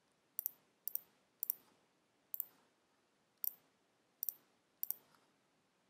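Computer mouse clicks: about seven quick, sharp clicks, each a press-and-release pair of ticks, spaced irregularly half a second to a second apart.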